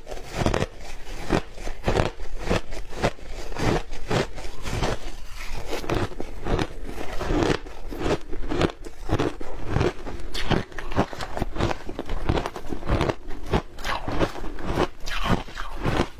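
Shaved ice dusted with matcha milk powder being bitten and chewed close to the microphone: rapid, irregular crunches, several a second.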